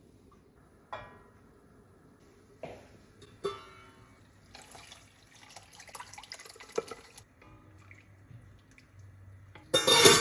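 Kitchen utensils clinking against dishes three times, each with a short ring, then a few seconds of water or liquid sounds, and a louder clatter near the end.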